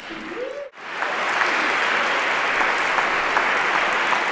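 Audience applauding steadily, the clapping starting abruptly about a second in after a short rising tone.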